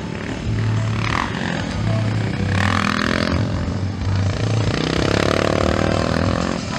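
Motocross bike engines revving as riders pass on the dirt track, rising in short bursts, then in one long climbing rev about two-thirds of the way through.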